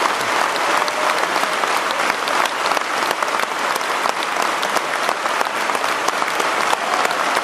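Large stadium crowd applauding, a dense steady patter of many hands clapping.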